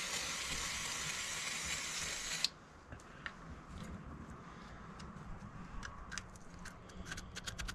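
Aerosol spray can spraying onto a car's gearbox casing: a steady hiss that cuts off suddenly about two and a half seconds in. Faint scattered clicks and taps follow.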